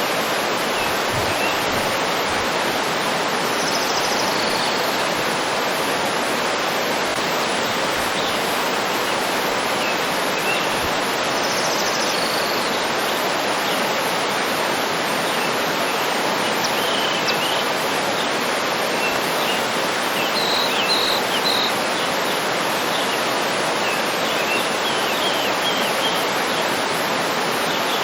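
Waterfall rushing steadily, with faint birds chirping over it now and then, a few short high notes in a row near the middle and end.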